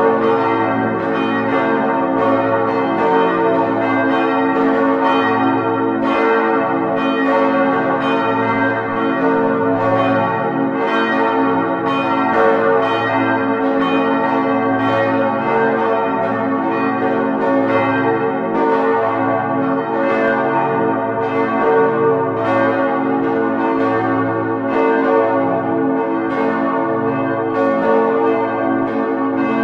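Church bells pealing: several bells ringing together in a continuous peal of overlapping strikes.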